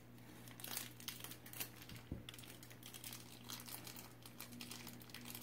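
Faint, irregular crinkling of a plastic blind-bag wrapper being handled and opened.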